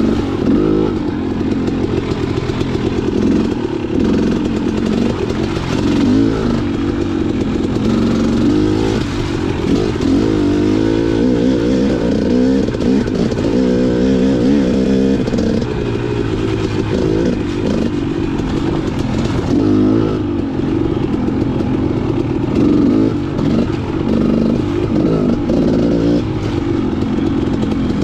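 KTM XC 300 two-stroke dirt bike engine under way, its revs rising and falling constantly as the throttle is worked.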